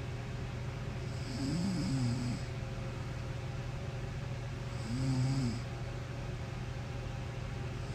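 A woman snoring in her sleep: two snores about three and a half seconds apart, each lasting about a second with a wavering pitch and a rough hiss. A steady low hum runs underneath.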